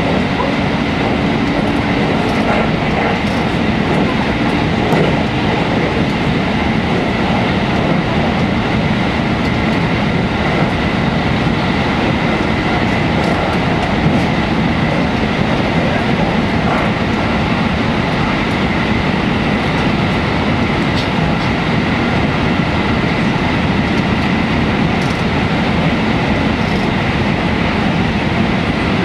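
JR 313 series electric train running at speed through a tunnel, heard inside the passenger car: a steady loud rumble of wheels on rail, with a faint steady high tone over it.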